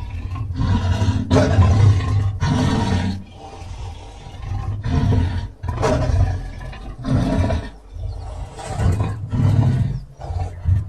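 Big-cat roars and growls, deep and loud, coming in a series of bursts with short pauses between them, offered as the reconstructed voice of the extinct cave lion (Panthera spelaea).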